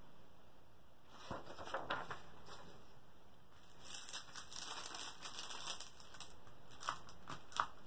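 Faint crinkling and rustling of the clear plastic film covering a diamond painting canvas as hands smooth and press it flat, with a few light clicks.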